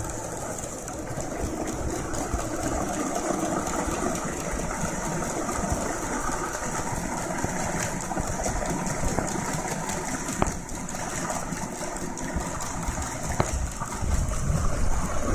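N-gauge model train running along the layout: a steady mechanical whir with a few faint clicks, growing louder near the end.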